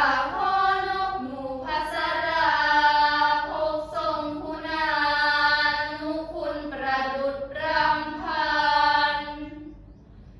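A group of girls chanting Thai Buddhist prayers in unison in a melodic, sung style, drawing out long held notes. The phrase begins at the start and dies away just before the end.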